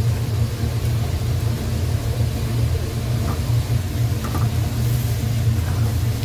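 Steady low rumble of a commercial gas burner on high flame under a pan of boiling tteokbokki sauce, with a couple of faint light knocks about three and four seconds in as a ladle goes into the pan.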